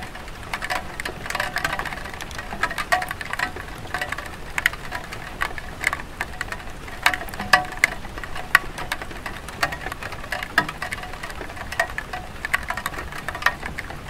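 Light rain pattering on a clay tile roof: a steady hiss with many irregular drops tapping.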